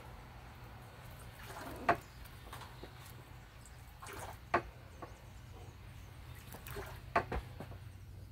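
Movements of a taekwondo form: a short swish followed by a sharp snap, four times at irregular intervals of about two to three seconds, the last two close together, over a steady low hum.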